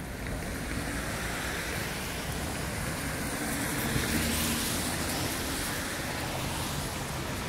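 A vehicle passes along a rain-wet city street, its tyre hiss swelling to a peak about four seconds in and easing off, over steady rain.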